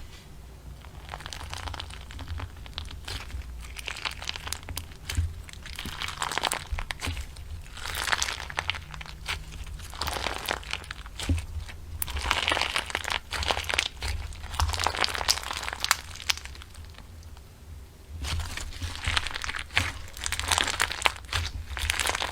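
Slime being squeezed and worked by hand, giving a dense crackle of small pops and clicks that swells and fades in waves every couple of seconds.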